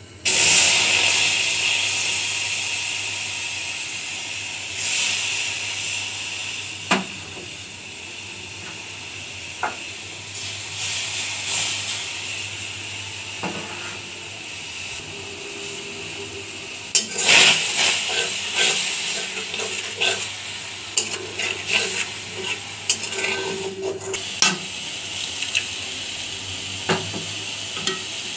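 Water and onion paste sizzling and hissing in a hot metal pan, cooked without oil. The hiss starts suddenly and slowly dies down, with scattered clinks and scrapes of a spoon against the pan, most of them about two-thirds of the way through.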